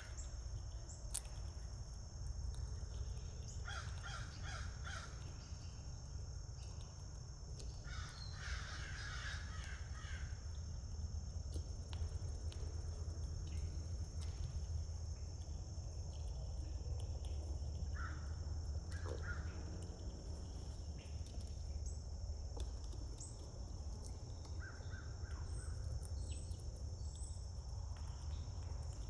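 Crows cawing in two quick series of harsh calls, with a few shorter calls later, over a steady high-pitched hiss and a low rumble.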